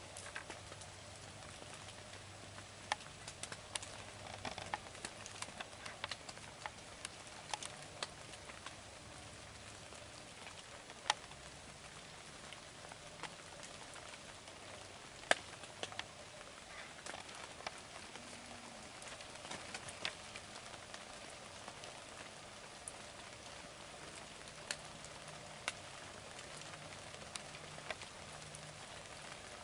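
Light rain falling in woodland: a soft steady hiss with scattered, irregular sharp ticks of drops landing.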